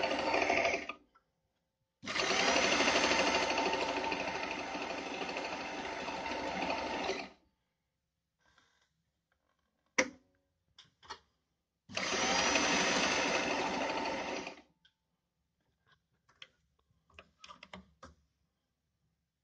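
Pfaff 294 sewing machine stitching in three runs: a moment at the start, about five seconds from two seconds in, and nearly three seconds from twelve seconds in. In the pause between runs, a sharp click and a few lighter clicks as a dial on the machine is turned, with faint ticks near the end.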